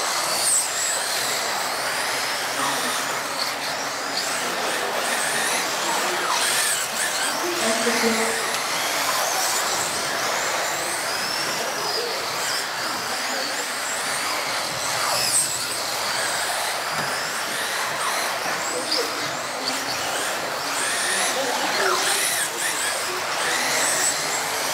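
A pack of electric radio-controlled off-road cars racing. Their motors give many overlapping high whines that rise and fall in pitch as they speed up and brake, over a steady hiss.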